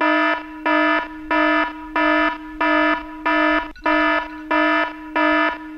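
Smartphone alarm going off: a buzzy electronic beep repeating evenly, about three beeps every two seconds.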